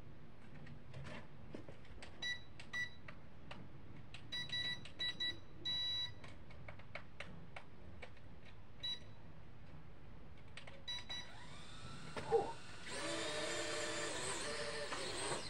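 Remote-control toy fighter jet: a scatter of short, high electronic beeps, then a louder whirring for about three seconds near the end.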